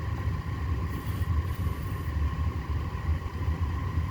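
Steady low rumble of a running car heard from inside it, with a faint steady hum higher up.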